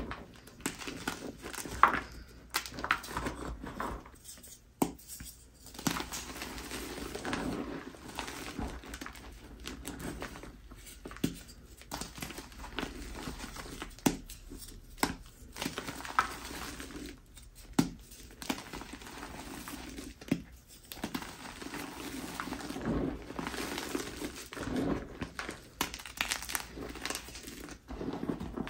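Bare hands crushing and crumbling reformed teal gym chalk blocks in a bowl of loose chalk powder: dry, irregular crunching and squeezing of the powder, broken by sharp cracks as pieces of block snap apart.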